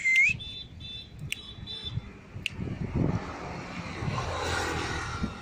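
A short rising whistle at the start, then a motor vehicle passing on the road, its noise building over the last couple of seconds and holding steady.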